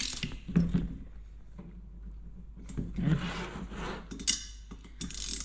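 Socket wrench tightening soft-metal screws into a diesel bunk heater's housing to seal its gasket: scraping and rubbing of the tool and screws, with a few sharp clicks.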